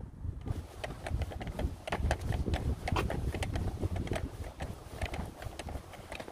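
Walking sounds: footsteps on a pavement with irregular clicks and rattles from carried gear, over a low rumble of wind on the microphone.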